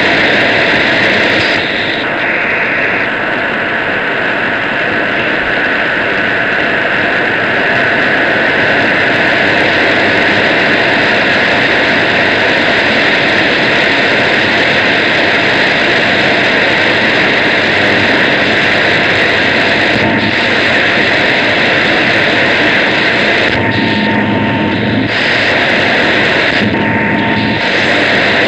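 Loud, steady shortwave radio noise, a dense hiss and rush with no programme audible through it, and a faint steady tone twice near the end.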